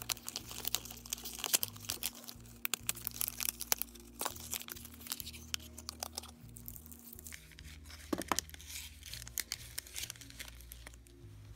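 A thin cardboard box being torn open by hand, then a thick stack of baseball cards pulled out and handled. The sound is a dense run of small tearing crackles and clicks at first, thinning to occasional card rustles and taps.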